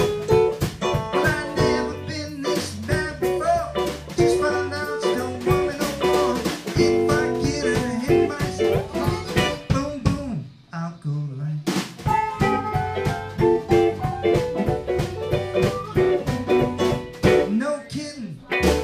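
Live blues band playing: electric guitar, Hammond organ and drum kit. The band drops out briefly about ten seconds in and comes back in on a sharp hit.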